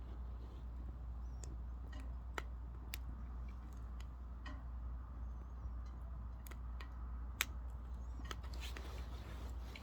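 Oak firewood crackling in a wood stove: scattered sharp pops and ticks at irregular intervals, from a low fire that a fresh log has just been added to.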